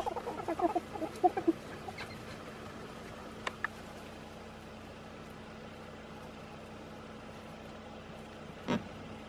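A quick run of short, pitched, clucking animal calls for about a second and a half, over a steady low hum. One short, louder sound comes near the end.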